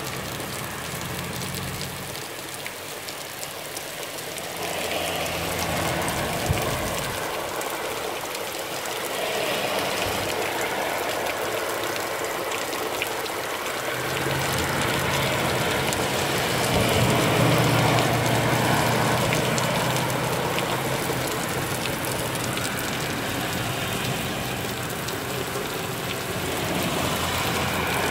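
Heavy rain pouring down steadily on an asphalt-shingle roof and leafy bushes, a dense even hiss. A low rumble rises beneath it about halfway through.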